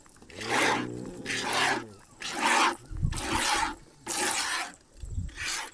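Hand milking of a cow: jets of milk hiss into a container in an even rhythm of about one stroke a second. A cow lows once with a falling call near the start.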